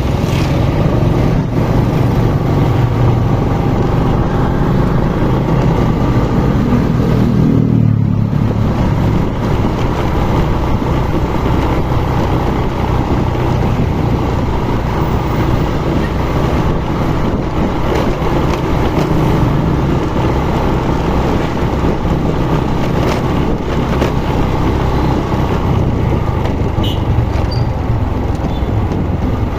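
Vehicle engine running steadily on the move, its pitch climbing and then dropping about eight seconds in, as when it revs up and shifts gear.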